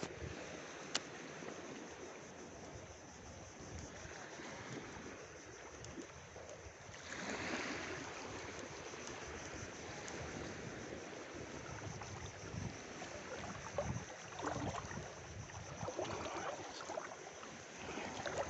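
Steady wind and small-wave water noise, with a single sharp click about a second in and a louder swell of noise about seven seconds in.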